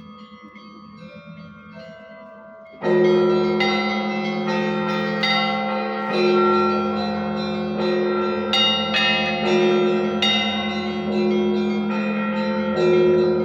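Russian church bells ringing: a few tones die away, then about three seconds in a full peal comes in loudly, with a big bell's steady hum beneath and smaller bells struck again and again, roughly once a second.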